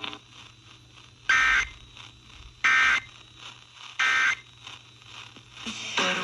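Emergency Alert System end-of-message data tones over broadcast radio: three short, shrill bursts of warbling digital tones about a second and a half apart, signalling that the severe thunderstorm warning has ended.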